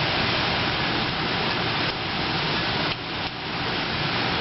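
Steady rushing noise of a thunderstorm's wind and rain, with a brief lull about three seconds in.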